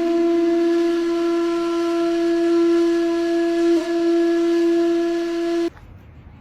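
A single long, steady note on a wind instrument, held for over five seconds with a slight wobble in the middle, then cut off abruptly near the end.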